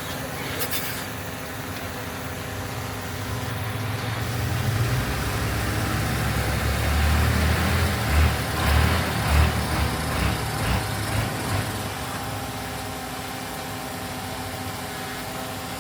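Heavy diesel engine of earthmoving equipment running steadily. About halfway through it rises into a run of louder, low surges that fade after a few seconds.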